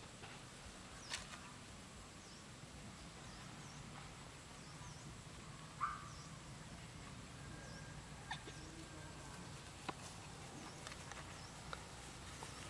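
Faint outdoor ambience with a small bird's high chirp repeating about every second through the first half, a few soft knocks, and one brief louder sound about six seconds in.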